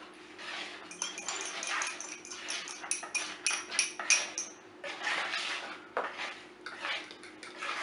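Spoon stirring dry flour, sugar and blueberries in a plastic mixing bowl while a fork beats egg in a small bowl: a busy run of light scrapes and clinks against the bowls, thickest in the first half.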